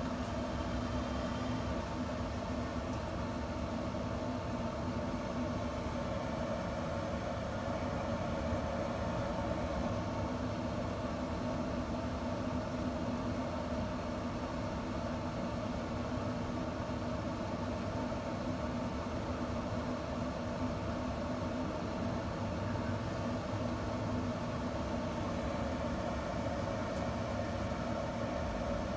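Camp Chef SmokePro pellet smoker's combustion fan running with a steady, unchanging hum.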